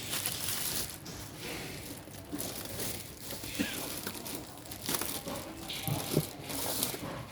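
Plastic packaging crinkling and rustling in irregular bursts as a boxed item is unwrapped and handled, with a few light knocks.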